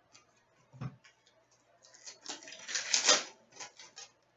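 Trading cards being handled and shuffled in the hands: a soft thump a little under a second in, then a couple of seconds of quick clicking and rustling as the cards slide over one another.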